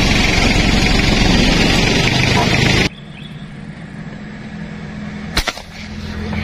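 Road traffic noise: a loud steady rushing that cuts off abruptly about three seconds in, leaving a low engine hum, with one sharp crack near the end.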